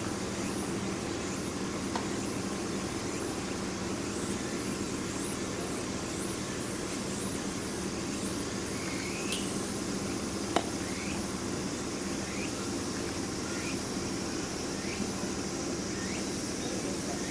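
Steady outdoor background of insects chirping over a low hum, with a few short rising chirps and one sharp knock about ten and a half seconds in.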